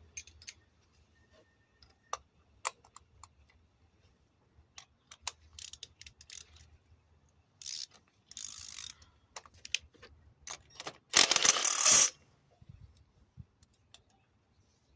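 Ratchet wrench clicking and metal tools clinking while working on the spark plugs of an Audi A4/A5 with a misfire, with a loud burst of dense, rapid clicking lasting about a second near the end.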